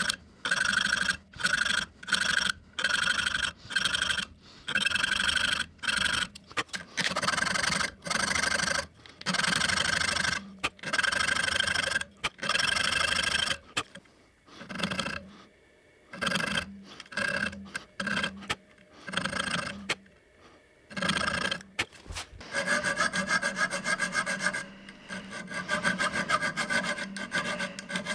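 Hand filing on the knife: repeated back-and-forth rasping strokes, about two a second at first, pausing and turning irregular midway, then quicker and denser near the end.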